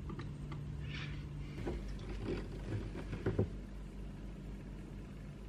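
Faint handling noises: a few light knocks and rustles, with a low hum that stops about a second and a half in.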